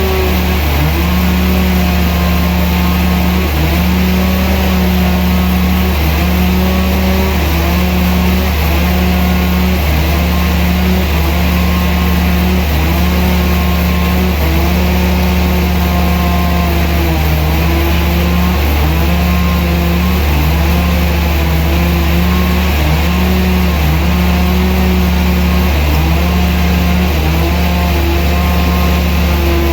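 Sawmill machinery running steadily under a loud low hum, its motor note dipping briefly and recovering every second or two as it takes load.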